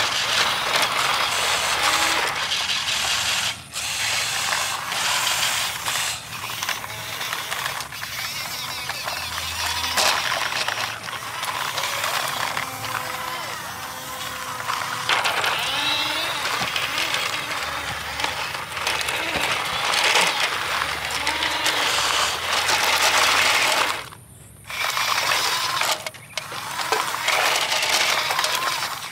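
Small electric gear motors in toy radio-controlled construction vehicles, a wheel loader and a dump truck, whirring and ratcheting steadily as they drive and work. The sound briefly cuts out near the end.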